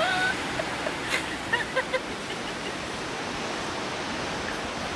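Surf washing over a rocky shore, a steady, even noise of breaking waves.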